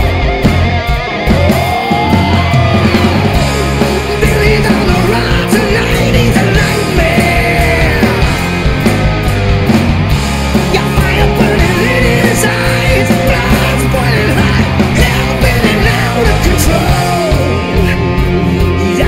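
Hard rock band playing loud and live: electric guitar, bass and drums, with sliding, bending lead-guitar lines over the rhythm.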